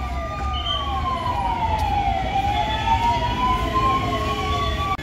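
Emergency vehicle siren wailing, its pitch sliding slowly down and back up, with a second, faster siren pattern of short falling sweeps repeating about three times a second. The sound breaks off sharply near the end.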